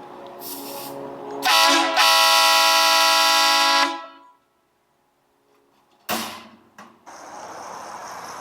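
An air horn sounds: a short blip, then a steady blast of about two seconds that cuts off. A sharp click comes a couple of seconds later.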